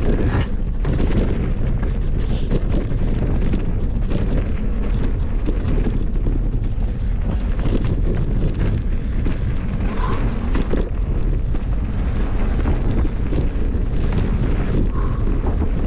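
Wind rumbling on the microphone during a fast hardtail mountain bike descent on a dirt trail, with tyre noise and frequent short knocks and rattles of the bike over bumps.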